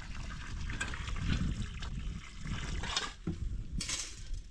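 Running water, a steady hiss, with several short knocks in the second half.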